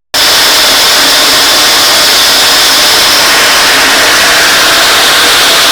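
Hammer mill running at a steady speed: loud, unchanging machine noise with a high whine riding over it.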